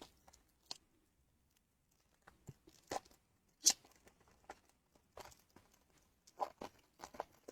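Intermittent crinkling and tearing of a trading-card pack's foil wrapper as it is opened and the cards are handled, in short sharp rustles.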